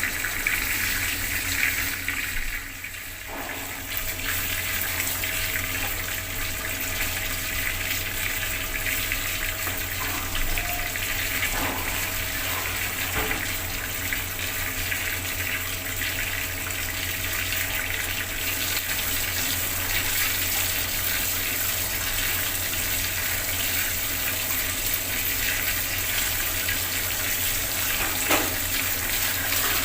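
Water from a bathroom tap running and splashing steadily, with a brief lull about three seconds in.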